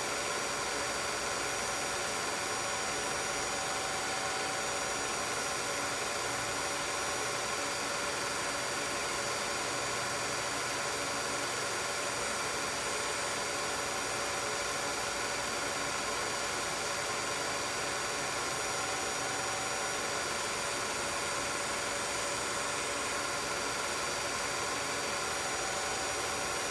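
16mm film projector running: a steady mechanical hum and whir with a constant hiss, unchanging throughout.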